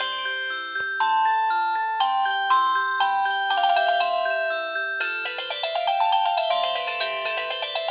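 LG VX3200 cell phone playing a built-in ringtone through its speaker: a bright, bell-like synthesized melody with several notes sounding at once over a simple bass line. About five seconds in it changes to a quicker run of rapidly repeated notes.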